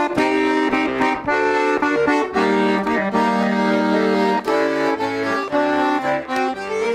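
Russian garmon (button accordion) playing the instrumental introduction to a folk song, sustained chords with a melody on top.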